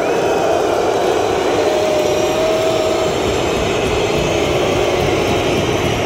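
Large crowd in a packed indoor basketball arena, thousands of fans making a steady, loud roar.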